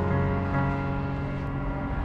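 Background piano music: one chord held and slowly fading before the next notes come in.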